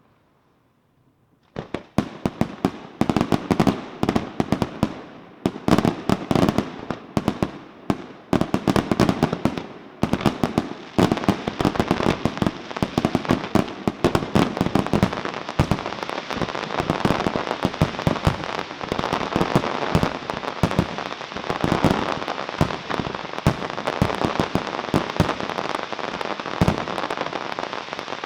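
Aerial fireworks display: after a brief lull, rapid overlapping bangs of shells bursting, building into a dense, continuous crackle of many bursts at once.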